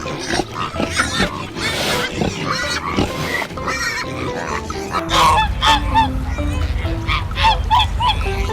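Pigs grunting and squealing, then from about five seconds in geese honking in a quick series of short calls, over light background music.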